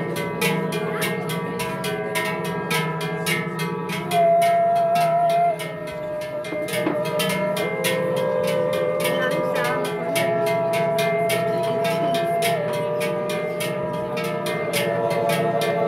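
Male choir singing an Appenzell yodel: low voices hold sustained chords while a high voice carries long, stepped melody notes. Large cowbells are shaken in a steady, fast rhythm throughout, ringing out as a clanking beat under the singing.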